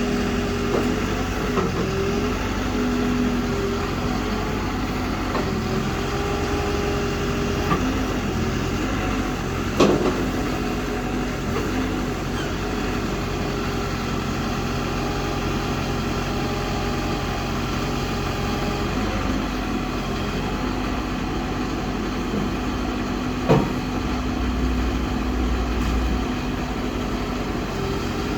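Hidromek HMK 102B Supra backhoe loader's diesel engine running steadily, its speed shifting slightly now and then. Two sharp clunks stand out, one about ten seconds in and another later on.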